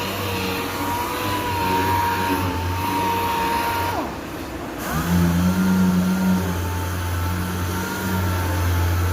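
Machine sander running steadily on epoxy primer on a car door, over a low steady hum. About four seconds in its pitch drops away as it spins down, and under a second later it spins back up.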